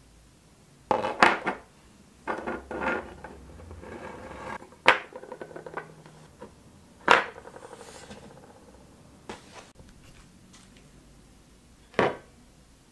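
Metal lizard figurines and a broken-off tail piece being handled and set down on a workbench: a scattered series of clinks and knocks, the sharpest about a second in, around five and seven seconds in, and one more near the end.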